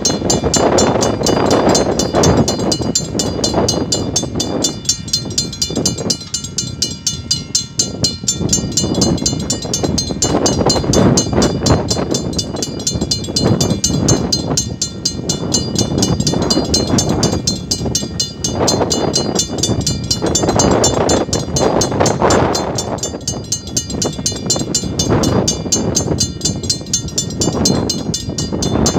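Level-crossing warning bell ringing with fast, even strokes, signalling an approaching train, over gusting wind buffeting the microphone.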